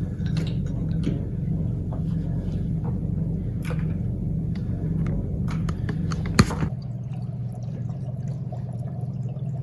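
A steady low rumble with scattered small clicks and ticks, then a single sharp click about six and a half seconds in, after which the background noise changes.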